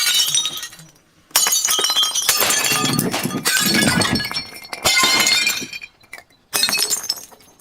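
Glass bottles breaking and crunching, with shards tinkling. The breaking comes in several separate bursts with short pauses between them.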